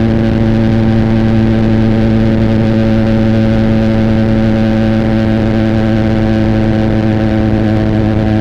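Benelli TNT 300's parallel-twin engine through an Austin Racing aftermarket exhaust, running at steady revs while the motorcycle is ridden, with its note holding one pitch throughout.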